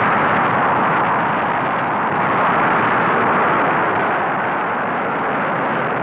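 Titan rocket engines firing during a launch: a loud, steady rush of noise.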